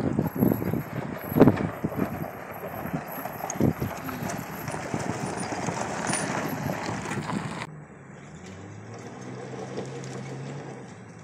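A 1992 Jeep 4x4's straight-six engine running as the Jeep drives over a rocky dirt trail, with a rough rumble and irregular knocks for the first seven or so seconds. About eight seconds in the sound changes abruptly to a quieter, steady low engine hum that fades near the end.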